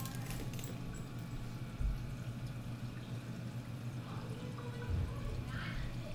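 Reef aquarium's water circulation: water trickling and splashing, over a steady low pump hum.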